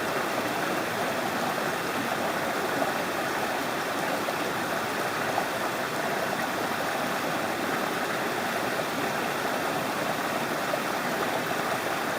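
Mountain stream water rushing steadily over rocks, a constant, even rush with no breaks.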